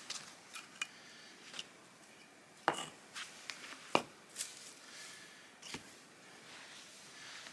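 Sandstone slabs knocking and clacking against each other as they are set by hand around a pit in sand, with gritty scraping between placements. The knocks are irregular, the two loudest near the middle.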